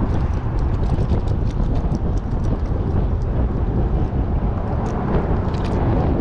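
Wind buffeting an action-camera microphone: a steady, loud rumbling noise, with scattered light ticks through it.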